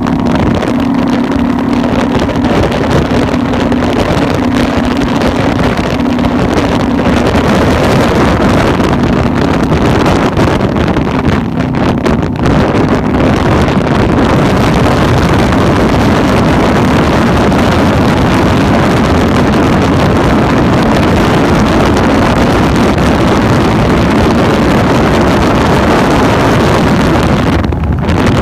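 Cruiser motorcycle riding at highway speed: loud, steady wind rushing over the microphone, with the engine's steady drone underneath that fades into the wind about halfway through.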